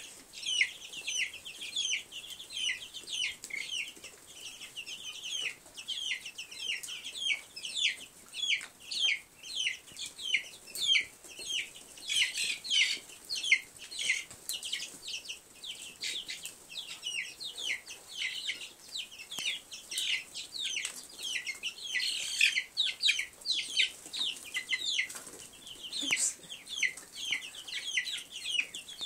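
A brooder full of chicks and ducklings peeping constantly: many short, high, falling peeps, several a second and overlapping from many birds.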